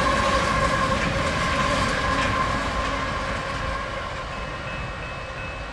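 Loaded coal train's hopper cars rolling along the rails with a steady ringing tone over the rumble, growing fainter as the train moves away.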